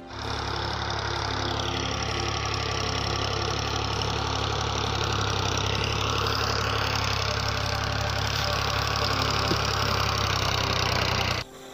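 A tractor's diesel engine running steadily with a low-pitched beat. It starts abruptly and cuts off suddenly near the end.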